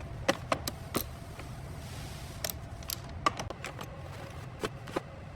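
Typing on a keyboard: irregular sharp key clicks over a steady low hum.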